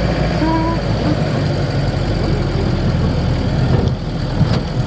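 Campervan on the move: its engine running steadily under road noise, a constant low rumble.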